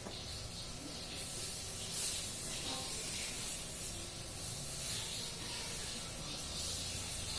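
Uneven high-pitched hissing noise that swells and fades over a low hum.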